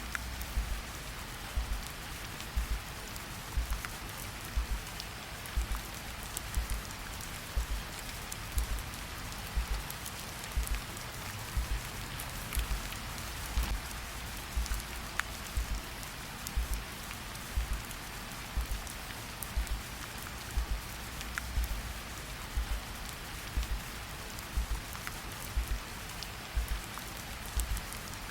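Steady rain falling, with a recorded heartbeat underneath: a low double thump repeating about once a second in an even, slow rhythm.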